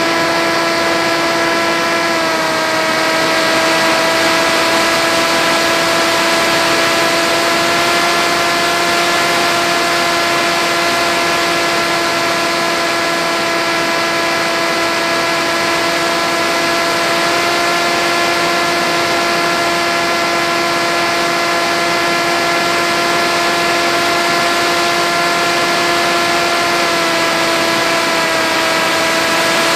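Electric motor and propeller of an FX-61 flying wing, heard through its onboard camera, whining steadily in flight over a rush of air noise. The pitch drops slightly about two seconds in and again near the end as the throttle eases.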